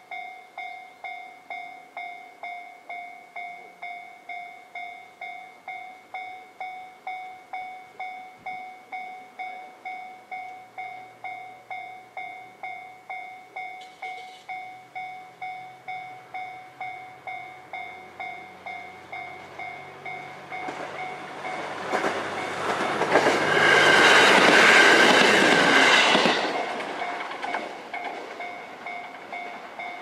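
Japanese level-crossing electronic warning bell ringing about twice a second while a KiHa 127 diesel railcar approaches, its engine hum growing. The railcar passes the crossing loudly about 22 to 26 seconds in, then fades as the bell keeps ringing.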